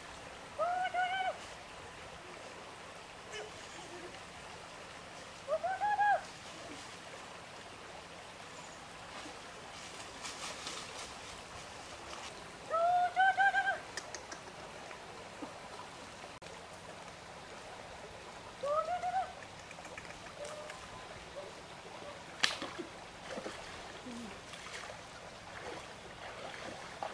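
A bird calling four times, each call one arched note, about six seconds apart, over a faint steady background of flowing water.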